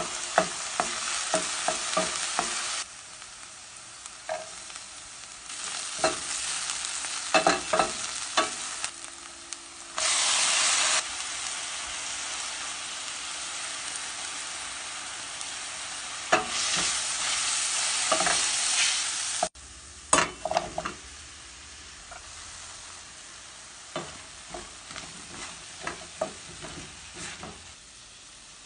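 Chopped vegetables frying in hot oil in a stainless steel pan, a steady sizzle, while a wooden spoon stirs them with scattered clicks and knocks against the pan. The sizzle jumps abruptly louder or quieter several times.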